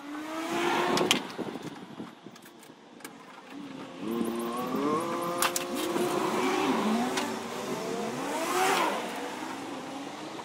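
A passing motor vehicle's engine rising and falling in pitch as it revs, with a few light metallic clicks.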